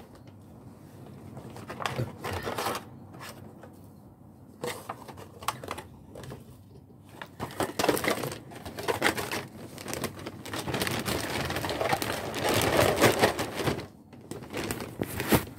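Thin plastic bags being handled and crumpled, crinkling and rustling in irregular bursts with many small crackles, loudest and almost unbroken through the second half.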